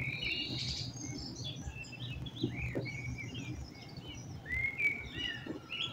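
Songbirds chirping and singing: many short, varied chirps and little rising-and-falling whistles from more than one bird, overlapping.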